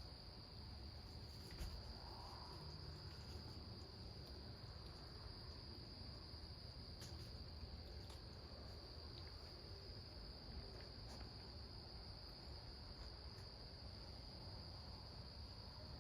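Crickets chirping in a steady, continuous high trill, with a few faint clicks.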